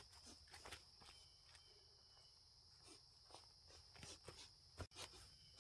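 Near silence: faint outdoor ambience with a steady high-pitched insect drone, likely crickets, and a few soft scattered clicks.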